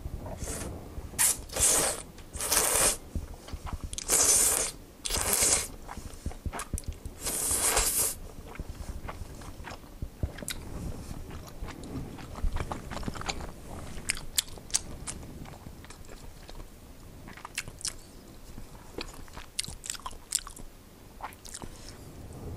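Udon noodles slurped up in a run of loud slurps over the first eight seconds, then quieter close-up chewing with small wet clicks of the mouth.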